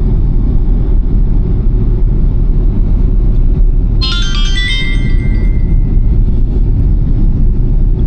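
Steady low rumble of a ride through the city. About four seconds in, a short bright electronic chime of several notes sounds, one note held for about two seconds.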